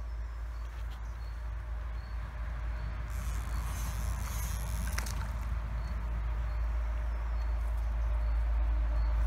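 A hooked small fish splashing at the creek's surface as it is played and lifted out, heard as a short burst of splashing about three to five seconds in with a sharp click near its end. Under it runs a steady low rumble that grows louder toward the end, and a faint high chirp repeats about once a second.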